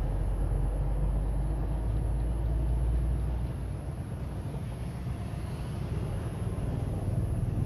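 Low rumble of road traffic, heavier for the first three seconds or so and then easing.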